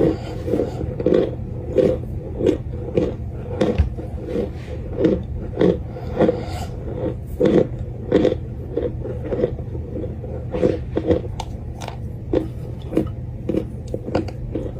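Close-miked chewing of crunchy pressed cornstarch chunks, a crisp crunch with each bite in a steady rhythm of roughly one and a half to two a second, over a steady low hum.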